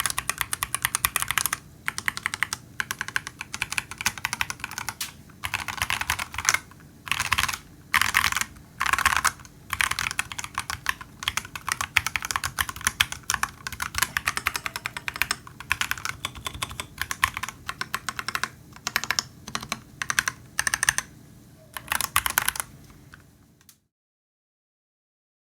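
Royal Kludge RK96 mechanical keyboard with unlubed Akko Jelly Purple switches and PBT keycaps being typed on: fast runs of key clacks in bursts with short pauses. The typing stops near the end, leaving silence.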